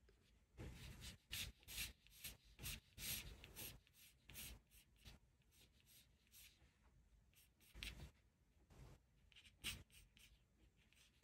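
Faint graphite pencil strokes scratching on paper: a quick run of short strokes in the first half, then a few separate ones.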